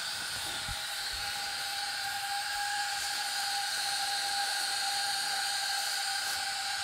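Pressure cooker on the stove hissing steam from its valve, a steady hiss with a faint whistling tone running through it.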